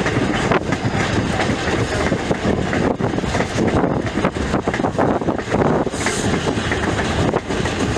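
Passenger train coach rolling along the track, heard from an open coach window: a steady rumble with rapid clicking of the wheels over the rail. A brief high hiss comes about six seconds in.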